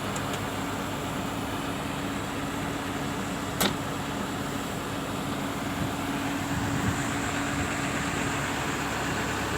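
Volvo excavator's diesel engine running steadily with a low hum, and one sharp click about three and a half seconds in.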